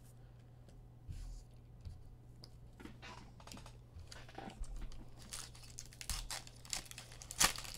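Foil wrapper of a basketball trading-card pack being torn open and crinkled: irregular rustles and sharp clicks that begin about a second in and grow busier in the second half.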